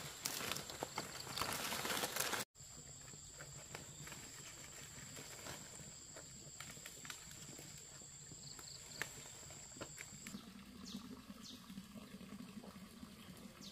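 Fresh palm leaves rustling and crinkling as they are handled and bound into a broom, cut off sharply about two and a half seconds in. After that, a quieter outdoor background with a steady high-pitched tone that stops about ten seconds in, followed by a low hum.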